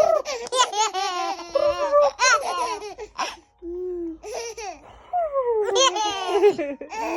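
Baby laughing hard in repeated bursts of quick, pulsing giggles, set off by tickling and silly noises.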